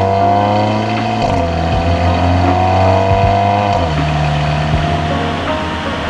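Audi A4 B9's 2.0 TFSI turbocharged four-cylinder engine pulling under acceleration, its note rising and changing pitch a couple of times as it goes.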